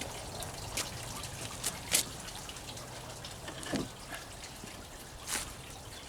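Pond water trickling steadily, with a few short sharp clicks and knocks, the loudest about two seconds in.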